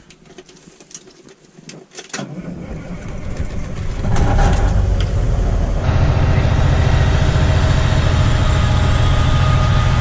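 A truck engine being started, with a few light clicks first, then catching about four seconds in and settling to run steadily.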